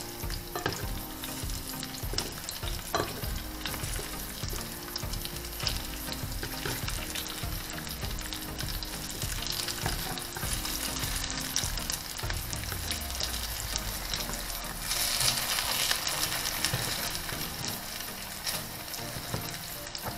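Fish patties sizzling in hot fat in a frying pan, with scrapes and taps of a wooden spatula and metal spoon against the pan as they are turned. The sizzle grows louder for a couple of seconds about fifteen seconds in.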